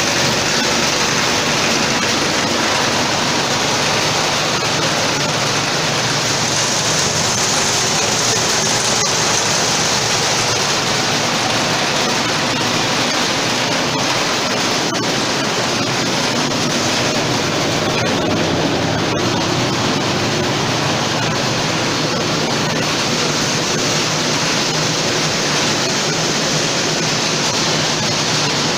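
Engine-driven pulse thresher running steadily while threshing beans, a loud, even rushing noise from the small engine and the threshing drum.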